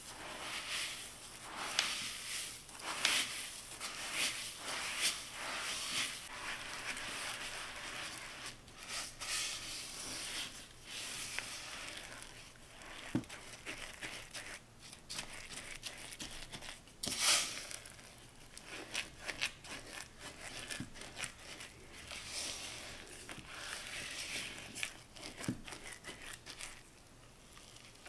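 A silicone spatula stirs sesame seeds into a sticky cookie dough in a mixing bowl. It makes a gritty, crackling scrape and squish in irregular strokes, with one louder stroke a little past the middle.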